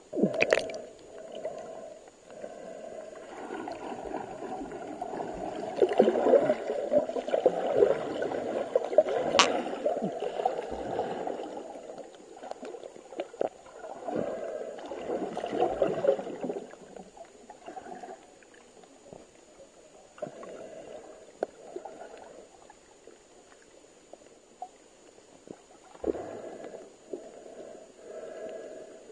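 Muffled sloshing and gurgling of water picked up by a camera underwater, coming in irregular surges. There are two sharp clicks, one at the start and one about nine seconds in, and a faint steady high tone underneath.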